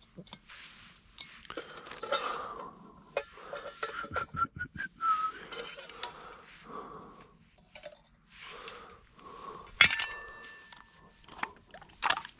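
Clinks, knocks and rustles of camp food containers and cookware being handled, with a short run of whistled notes about four seconds in.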